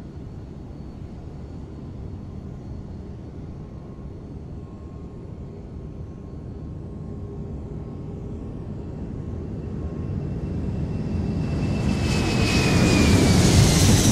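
Aircraft flying past: a low roar that swells steadily to a loud peak near the end, with a faint whine that falls slightly in pitch as it passes.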